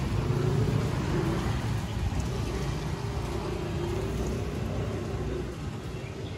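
A motor vehicle's engine running close by, a steady low rumble that grows quieter about five and a half seconds in.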